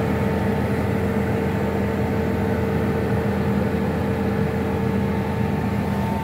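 Tractor engine running steadily at constant speed, heard from inside the cab as an even drone with a steady hum.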